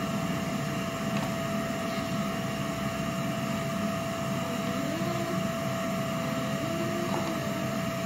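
Canister vacuum cleaner running steadily, its motor giving a constant whine over a rushing hum as the nozzle is pushed back and forth over carpet.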